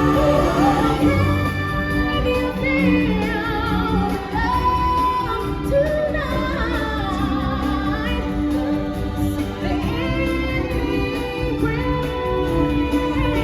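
Stage-show music with singers: held, wavering sung notes over a full backing track, with no words clear enough to make out.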